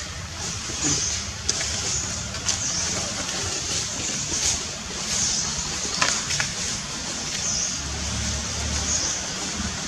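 Steady outdoor background noise with the low drone of a motor vehicle, which swells near the end, and short high chirps every second or two.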